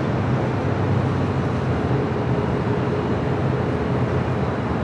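Steady low rumble of jet aircraft engines.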